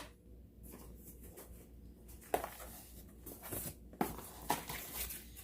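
Rustling and a few sharp light knocks as unboxed accessories and packaging are handled.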